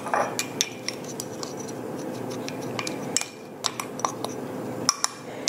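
A spoon stirring a dry spice rub in a small ceramic ramekin, with irregular light clicks and scrapes of the spoon against the bowl.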